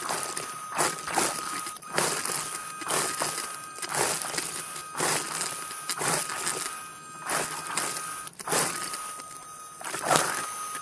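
Underwater scooter (diver propulsion vehicle) motor running with a steady whine, heard underwater, with rushes of water noise about once a second.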